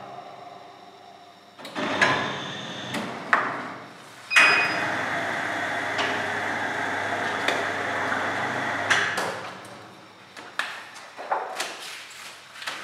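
Automatic glue (perfect) binding machine cycling: a few sharp clunks, a short beep, then the machine runs steadily for about five seconds before fading into scattered clicks and knocks.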